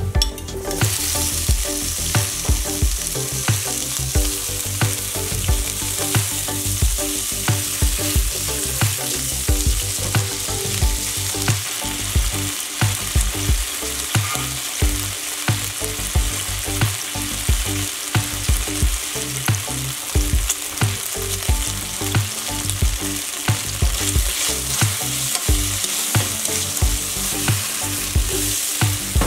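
Bacon strips and sliced garlic sizzling in hot oil in a frying pan, the sizzle starting up loudly about half a second in as the bacon goes into the pan and holding steady as it fries.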